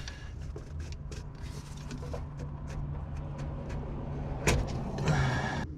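Light scattered ticks and a sharp knock over a steady low rumble, then a brief louder scraping noise that stops abruptly near the end: handling of tools and parts under a van during an oil change.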